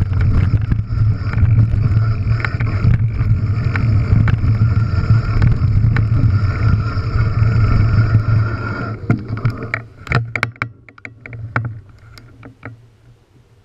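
Enduro mountain bike rolling fast down a rocky trail, heard from a camera on the bike: loud, steady tyre and rolling noise with the bike rattling over stones. About nine seconds in the noise drops away as the bike slows, leaving a run of scattered clicks and knocks.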